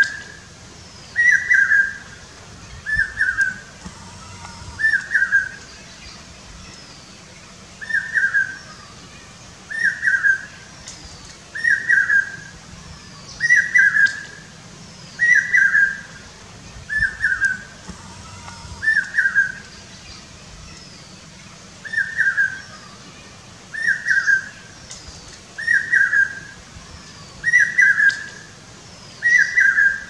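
Common hawk-cuckoo (brain-fever bird) calling: loud, shrill, high-pitched whistled notes repeated about every second and a half to two seconds, in runs broken by short pauses. Faint high calls of another bird sound in the background.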